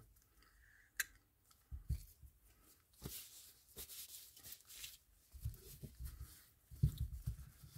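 Faint handling sounds of a spinning reel being worked on a cloth-covered bench: a sharp click about a second in, then scattered soft knocks and a cloth rubbing over the reel body.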